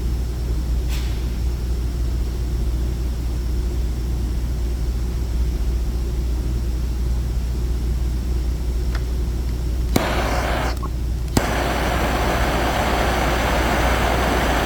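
A handheld torch lit with a click, hissing briefly and going out, then clicking again and hissing steadily: a flame being readied to flash the surface of the plastic repair shiny. A low steady hum sits under it throughout.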